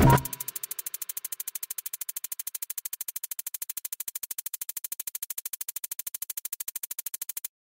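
Electronic background music with a drum-machine beat ends just after the start. A faint, fast, even fluttering hiss follows at about a dozen pulses a second and cuts off suddenly near the end.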